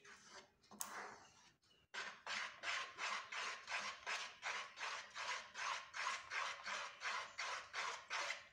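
Wooden spoon scraping round a pan as it stirs cocoa powder into thick condensed milk, in quick even strokes about three a second. A short pause comes about two seconds in.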